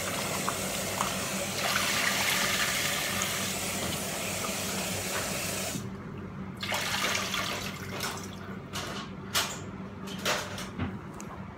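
Kitchen tap water running while raw chicken wings are rinsed in the sink; about six seconds in the water stops abruptly, and several short knocks and clatters follow as the pieces and bowl are handled.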